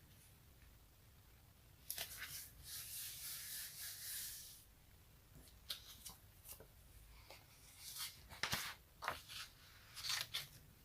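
Close-miked sticky surface being peeled apart: a sudden long crackling peel about two seconds in, then a series of short, sharp sticky snaps and crackles.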